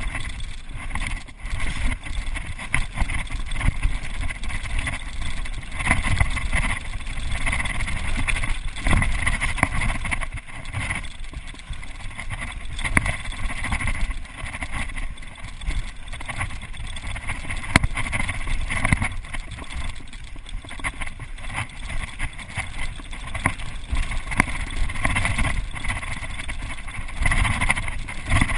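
Mountain bike riding fast down a gravel forest trail: tyres rolling and crunching on the loose surface, with frequent knocks and rattles from the bike over bumps and wind rushing over the microphone.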